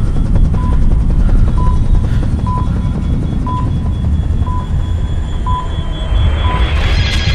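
Bomb countdown timer beeping about once a second over a loud, steady low rumble, with a rising swell building in the last second.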